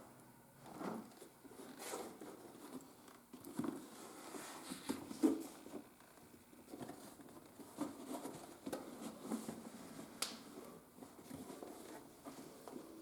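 Leather and hand tools being handled at a workbench: scattered soft taps, rustles and clicks at an irregular pace, with a couple of sharper ticks.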